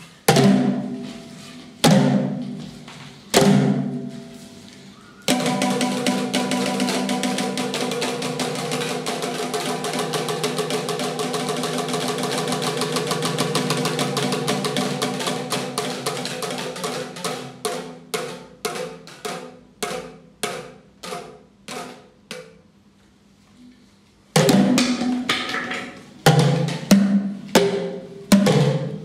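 Boomwhackers, tuned plastic tubes, struck by a group, several pitches sounding together. Three single ringing hits come first, then a fast dense roll that slowly thins into slower, scattered hits. After a short gap a new burst of hits starts near the end.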